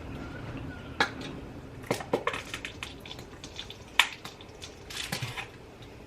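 A spoon clinking and scraping against dishware in irregular knocks while food is spooned and mixed.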